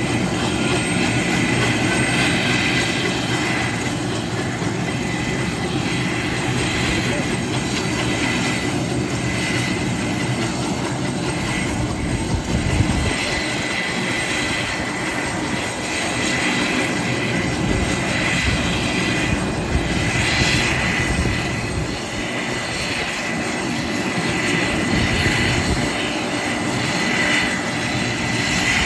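Sikorsky S-70 Black Hawk helicopter starting up, rotors not yet turning: a steady high turbine whine over a constant rushing noise.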